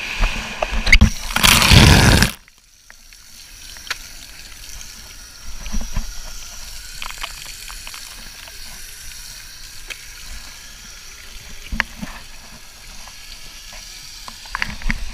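Water from an outdoor foot-rinse shower running onto bare feet and a wooden deck: a steady hiss of running water with small splashes and taps. About a second in there is a loud rushing burst that cuts off suddenly.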